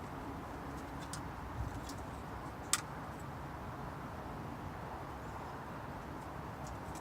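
Steady outdoor background noise with a low hum, a few faint ticks and one sharp click about three seconds in.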